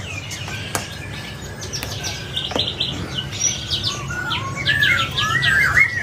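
Caged songbirds chirping and singing: many short quick chirps and a few sliding whistled notes, busier in the second half, over a steady low hum.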